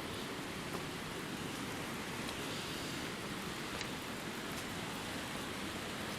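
Steady hiss of falling water, even and unbroken, with a few faint ticks.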